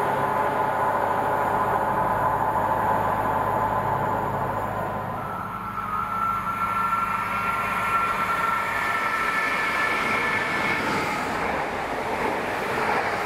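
Chiltern Railways diesel multiple units passing through a station. First a Class 168 runs through with a steady low engine drone. Then, about halfway through, another unit approaches and runs past close by with a steady high whine over rail noise.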